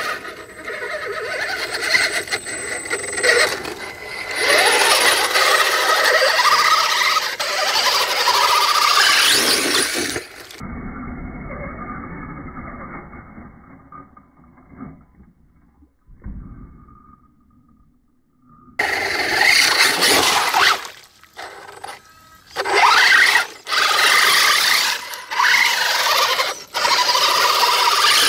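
Electric RC 6x6 mud truck's brushless motor and geartrain whining, rising and falling in pitch with the throttle, over tires grinding in dirt and mud. The sound turns muffled and quieter for several seconds in the middle, then returns loud in short stop-start spurts near the end.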